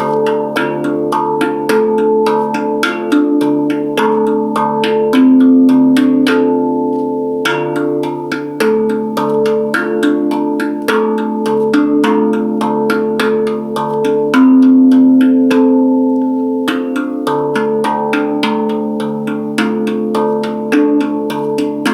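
Handpan played in a steady flow of quick strikes, about three or four a second, each note ringing on over a low sustained hum of overtones. Twice the striking pauses briefly and the struck notes ring out before the pattern resumes.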